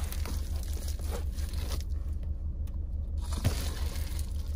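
A sheet of Reflectix foil-faced bubble insulation crinkling and scraping as it is handled and smoothed flat, with a few sharper crackles and a quieter moment in the middle, over a steady low hum.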